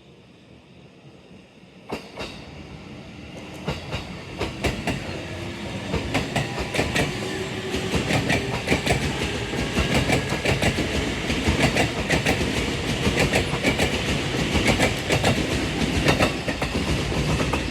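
E653 series electric multiple unit pulling out of a station: its wheels click over the rail joints, the clicks coming faster and louder as the train gathers speed and rolls past.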